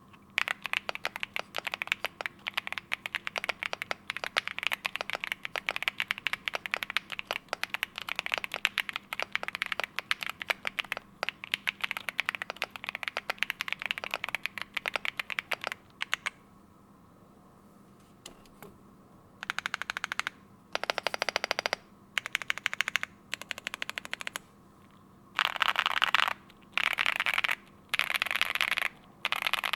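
Mechanical keyboard with stock Gateron Jupiter Banana tactile switches under PBT keycaps on an FR4 plate, typed on fast and steadily for about sixteen seconds. After a short pause come several separate one-second bursts of very rapid keystrokes.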